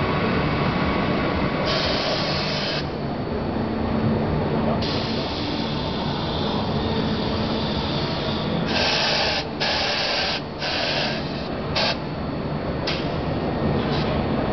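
Corghi Artiglio 50 tyre changer at work: a steady motor drone under repeated bursts of compressed-air hiss from its pneumatic controls, one long burst in the middle and several short ones close together after it.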